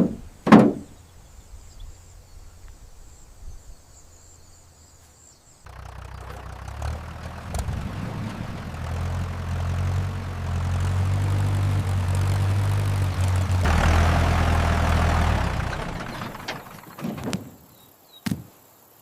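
A low, engine-like hum with a rushing noise starts about six seconds in, builds for several seconds and dies away near the end. A few short knocks follow it.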